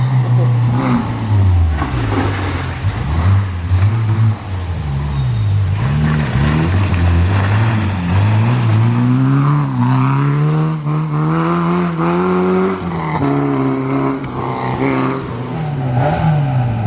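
Peugeot 205 rally car's four-cylinder petrol engine driven hard. Its pitch climbs repeatedly under acceleration and drops sharply at each gear change, with the longest climb ending in a drop near the end.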